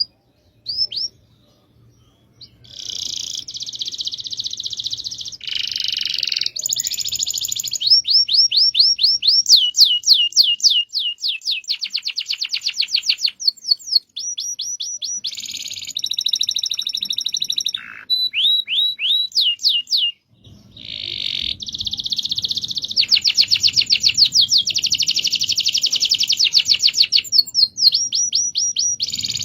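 Domestic canary singing long rolling trills: rapid runs of repeated quick down-sweeping notes alternating with buzzy rolls, broken by short pauses about 14 and 20 seconds in.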